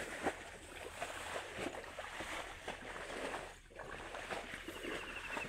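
Footsteps and rustling through grass and leafy undergrowth: a run of short, uneven crackles and brushes of stems and leaves over a steady background hiss.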